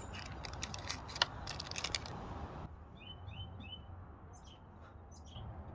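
Light clicks and rustles of hands handling small pump parts. About halfway in the background noise drops suddenly and small birds chirp in short, high, falling chirps.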